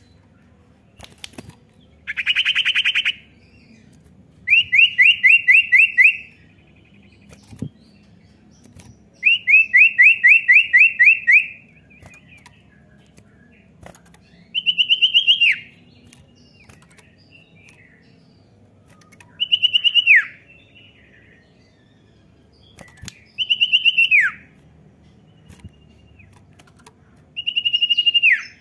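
Common iora singing: three rapid, even trills of about a second and a half each, then four separate whistled notes a few seconds apart, each held briefly and then dropping sharply in pitch.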